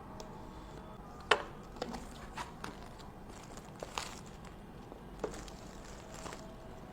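Cardboard phone box being handled and opened: a string of sharp clicks and taps, one much louder about a second in, with short rustles of paper and plastic packaging.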